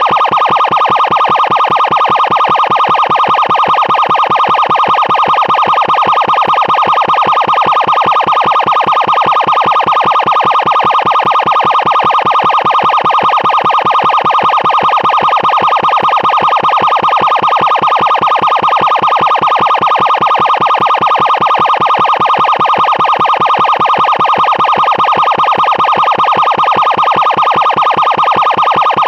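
Loud emergency siren sounding continuously at one steady pitch with a fast, even pulsing flutter, without the rise and fall of a wail.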